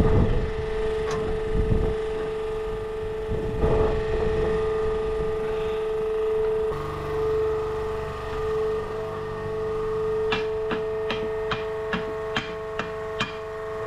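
Hammer blows on a red-hot steel plate, about ten strikes at roughly three a second near the end, over a steady hum that runs throughout. Earlier there are a few low thumps as the steel piece is handled in the forge fire.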